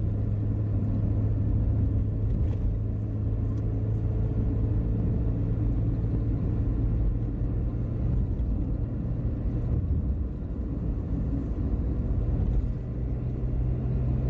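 Steady low rumble of a Toyota Rush at road speed: engine and tyre noise heard from inside the cabin.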